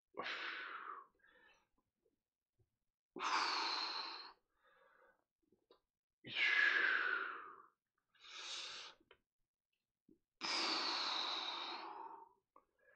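A man breathing deeply and audibly, five long breaths in and out, paced with an overhead arm exercise done lying on his back.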